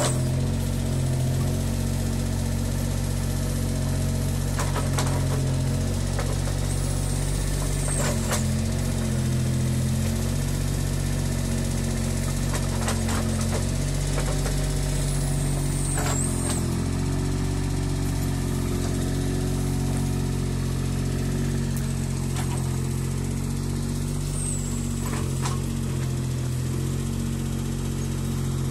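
Mini excavator engine running steadily under digging work, its pitch dipping briefly now and then as the hydraulics take load. A few knocks from the bucket working the soil and stones.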